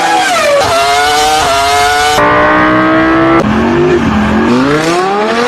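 Car engines revving, loud, in a quick run of spliced clips. The pitch drops in the first moment, holds at high revs through the middle, then climbs steadily near the end, with abrupt cuts from one engine to the next.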